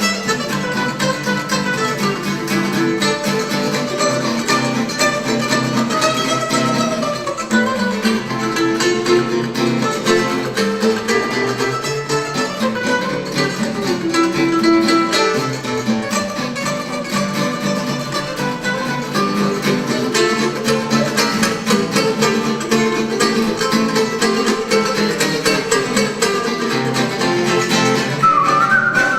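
Live instrumental music led by plucked strings, guitar-like, playing continuously. Near the end a rising pitched glide comes in over it.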